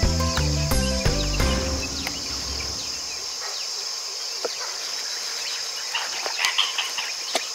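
Steady high-pitched drone of insects, with background music whose low bass notes stop about three seconds in.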